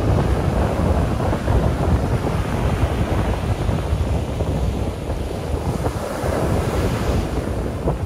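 Ocean surf breaking and washing up a sandy beach, with gusty wind buffeting the microphone in a steady low rumble. The hiss of the surf grows louder about six seconds in, then eases.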